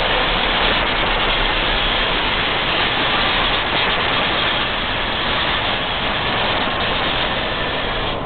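Märklin model locomotive running uphill on metal M-track, a steady noise of its motor and wheels that drops off sharply about eight seconds in as it runs out of frame.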